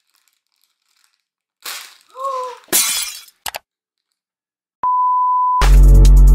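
A plastic bag of basmati rice tearing open with a rustle, a short crying whimper, then a brief clattering crash. It is followed by a steady high one-pitch bleep of under a second, and music cuts back in near the end.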